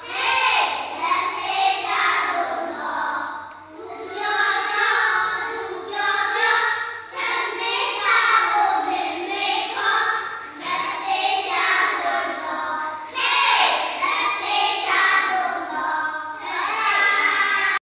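A group of young children singing a hand-washing song together in unison. The singing cuts off abruptly at the very end.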